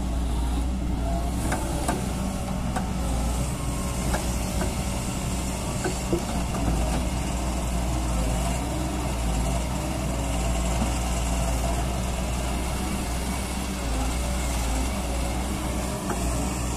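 Doosan DX140W wheeled excavator's diesel engine running steadily while the arm and bucket dig earth, with a few light knocks in the first few seconds.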